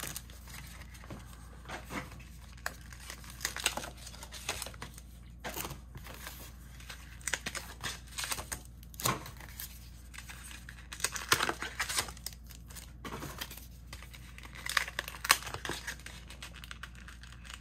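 Foil Pokémon booster pack wrappers crinkling and packaging tearing as packs are taken out of cardboard mystery boxes and set down on a table, in short irregular bursts of crackling.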